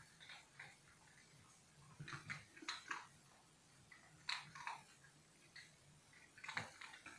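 Whippet puppies playing quietly, mouthing and chewing at each other: faint, scattered chewing and nibbling sounds in a few short bouts, around two to three seconds in, just past four seconds and again near six and a half seconds.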